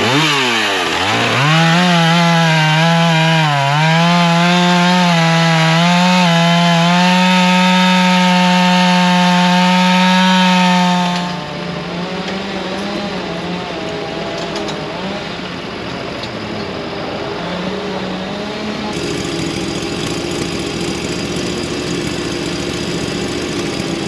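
Gas chainsaw revving up and cutting into a large walnut log, its pitch dipping each time the chain bogs in the wood, for about the first eleven seconds. It then breaks off to the lower, steady running of a compact track loader's engine.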